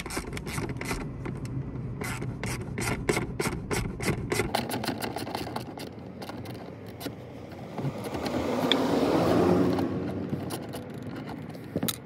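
Ratchet wrench clicking in quick, even strokes, several a second, as a seat belt anchor bolt is backed out, stopping after about four seconds. It is followed by a rasping rub that swells and fades over a couple of seconds, and a single click near the end.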